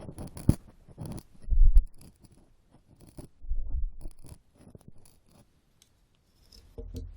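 Ear-cleaning ASMR: an ear pick scraping and scratching close against the microphone in quick crackly strokes, with two dull low thumps from the mic being handled. It goes quiet for a moment before the scratching resumes near the end.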